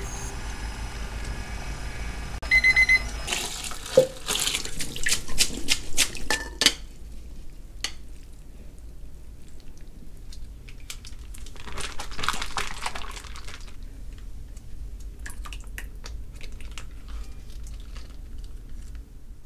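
A digital kitchen timer beeps briefly about two and a half seconds in. Then a pot of boiled ramen noodles is poured out over a stainless-steel sink, water splashing and clattering for a few seconds, with another stretch of splashing water about twelve seconds in.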